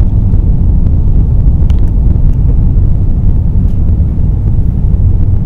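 Inside the cabin of an Airbus A380 on its takeoff roll: a loud, steady low rumble from its four Rolls-Royce Trent 900 engines at takeoff thrust and the wheels running down the runway.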